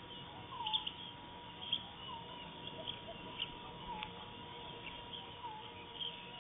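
Birds calling at dusk in dry forest: one bird gives a short falling note about every one and a half seconds, while other birds add brief high chirps. A thin steady tone runs underneath.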